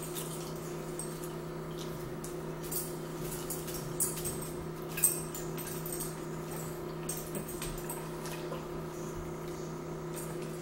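Quiet eating sounds of fried shrimp and french fries being chewed and handled by hand, with a few sharp clicks about four and five seconds in, over a steady low hum.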